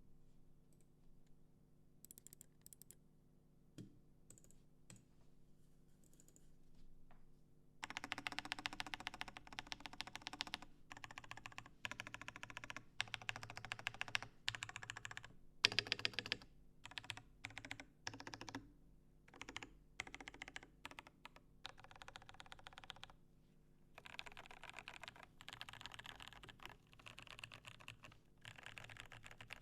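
Rama U-80 custom mechanical keyboard with lubed Cherry MX Clear tactile switches in a brass plate, being typed on. A few scattered keystrokes come first, then fast continuous typing in runs with short pauses from about eight seconds in.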